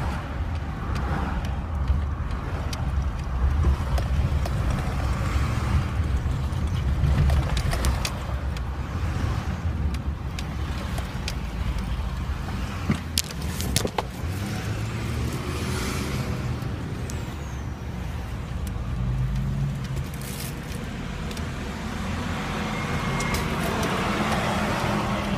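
Turbo diesel pickup truck driving, its engine and road noise a steady low rumble heard from inside the cab, with a few sharp clicks about halfway through.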